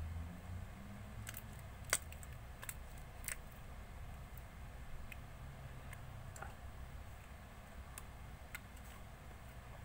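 Slime being handled and pressed by hand, giving scattered small clicks and pops, the loudest about two seconds in, over a faint low hum.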